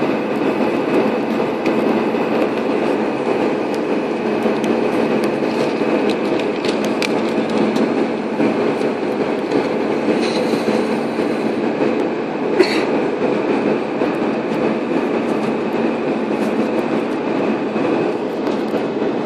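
Steady airliner cabin noise from inside the cabin: the engines and the rushing air outside the fuselage making an even rumble. There is one sharp click about twelve seconds in.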